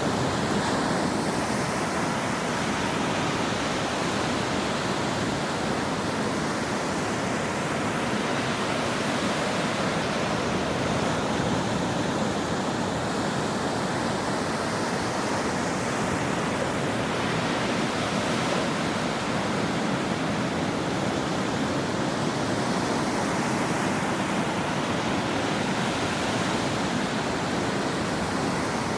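Ocean surf washing on a shore: a dense, steady rush of water noise, its upper hiss swelling and fading slowly every several seconds.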